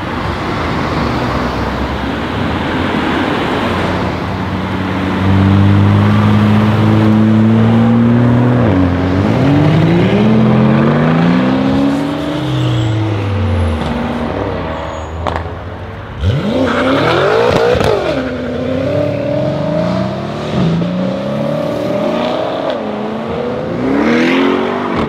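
Several performance cars accelerating hard past one after another, their exhausts revving up and dropping back through gear changes, with a sharp crack about sixteen seconds in.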